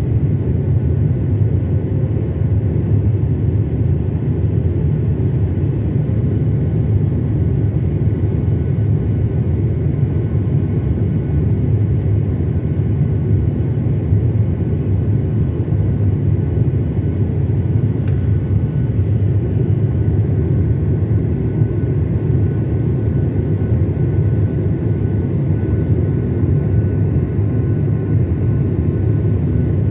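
Cabin noise of a twin-engine jet airliner climbing after takeoff, heard from a window seat over the wing: a steady deep rumble with a faint high hum over it. One small click about 18 seconds in.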